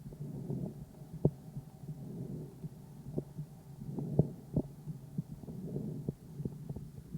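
Calf's chest sounds picked up by a stethoscope microphone: low breath noise that swells and fades with each breath over a steady low hum, broken by scattered sharp clicks.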